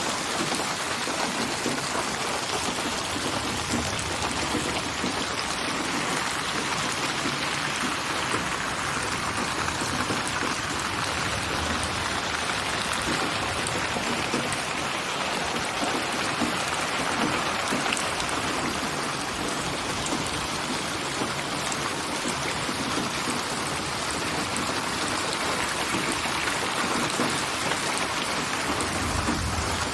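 Steady rain ambience of many layered rain samples, a dense even patter that slowly swells and eases, panned around the listener as 8D spatial audio.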